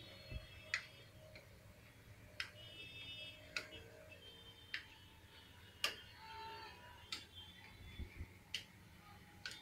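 Metal spatulas striking the steel plate of a rolled-ice-cream freezing pan while chocolate ice cream base is spread: faint sharp clicks, about eight in all, a little over a second apart.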